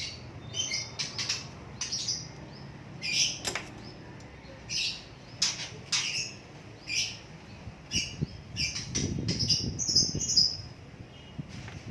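Small pet bird, held in the hand while a fatty lump is cut out from under its skin, giving short sharp distress calls over and over, with a burst of wing flapping and rustling near the end.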